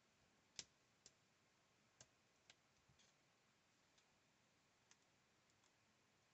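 Near silence broken by a handful of faint, irregular clicks and taps, the sharpest just over half a second in.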